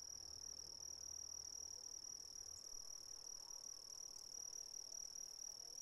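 Faint crickets trilling steadily as one high, unbroken tone.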